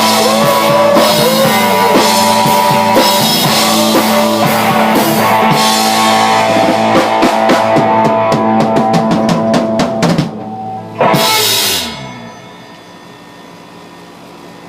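Rock band playing with a full drum kit, ending the song with a run of fast drum hits and one final loud crash about eleven seconds in that rings out, then a low room hum.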